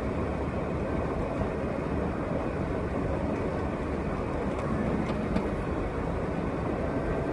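Steady engine and tyre noise heard from inside the cabin of a moving car.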